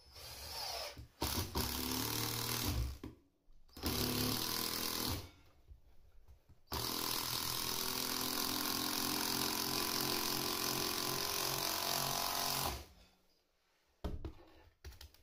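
Cordless drill running in bursts: three short runs, then one long steady run of about six seconds.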